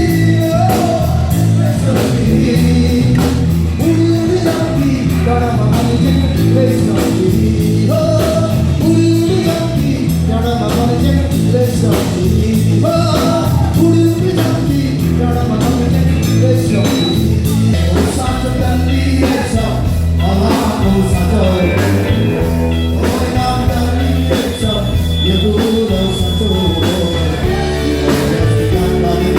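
Live blues-rock band with a singer, strong bass and a steady drum beat, playing a Nepali folk song; the music switches to a second song about two-thirds of the way through.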